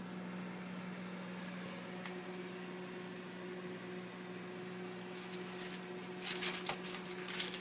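Microwave oven running with a steady hum while heating a bowl of snow, with a second, higher tone joining about two seconds in. A few short rustling or crackling noises come near the end.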